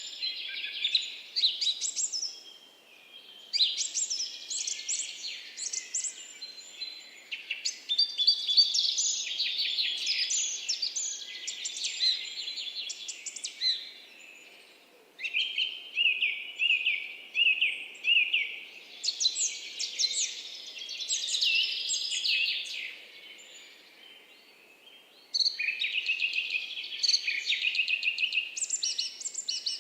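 Several small songbirds chirping and trilling in rapid, overlapping phrases with short pauses between them, including a run of evenly repeated high chirps about a third of the way in.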